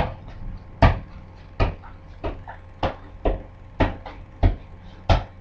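A soccer ball struck again and again, a sharp thud about every two-thirds of a second, nine in all.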